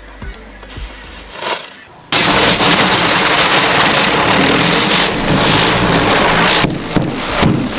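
Firecrackers going off in a dense, continuous crackle that starts suddenly about two seconds in, with brief dips near the end.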